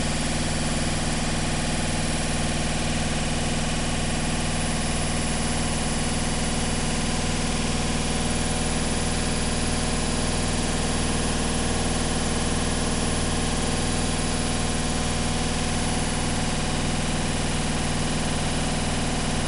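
Washing machine running: a steady motor hum with a regular low throb.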